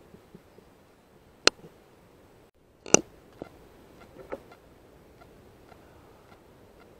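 Two sharp clicks about a second and a half apart, the second the louder, then faint scattered ticking.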